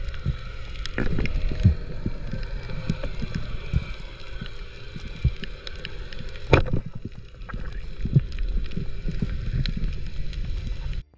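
Underwater sound picked up by a diving camera: a low churning rumble of water movement, with scattered clicks and crackles and one sharp click about six and a half seconds in. The sound cuts out briefly near the end.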